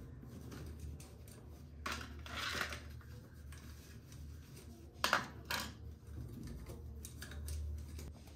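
Small household items being handled and set down: a short rustle or scrape about two seconds in, then two sharp knocks about five seconds in.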